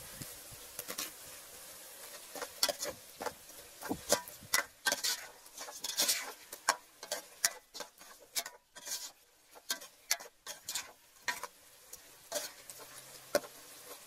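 Metal ladle clinking and knocking against a metal cooking pot while stirring and spooning broth over fish. The knocks come irregularly, thickest through the middle and only now and then near the end.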